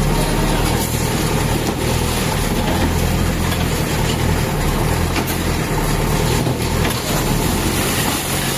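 A heavy engine running steadily at a constant low pitch.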